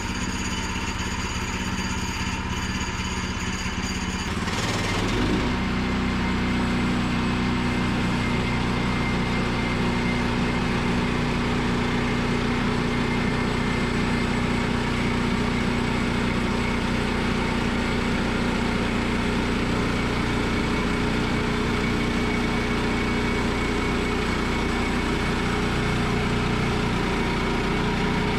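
Gas engine of a Woodland Mills portable bandsaw sawmill running steadily. About four seconds in the sound grows louder and fuller, then holds steady, as the band blade saws through the log under load.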